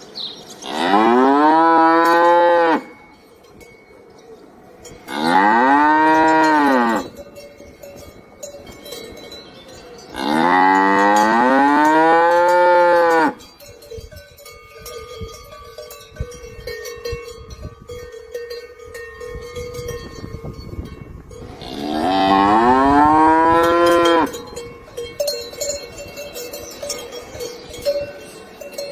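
Cow mooing: four long, loud moos, each rising then falling in pitch, with quieter pauses between them and the longest pause after the third.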